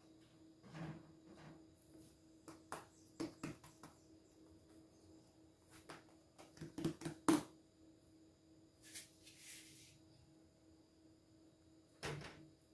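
Faint, scattered light taps and clicks of hands working a strip of ensaimada dough on a paper-lined table, with a quick cluster of them about seven seconds in, a short rustle near nine seconds and a knock near the end. A faint steady hum sits underneath.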